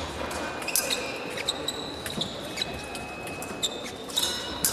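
Fencing hall ambience with scattered sharp knocks and short high-pitched squeaks on the floor.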